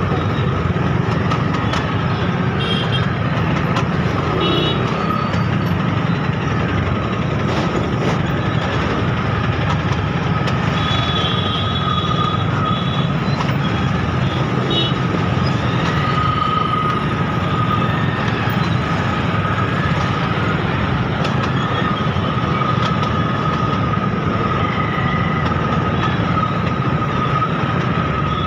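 Motorcycle and scooter traffic jam: many small engines running steadily together, with a steady high tone and short high-pitched beeps now and then.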